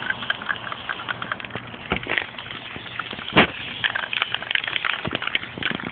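Aerosol spray paint can handled and shaken, giving irregular clicks and rattles, with one loud click about three and a half seconds in.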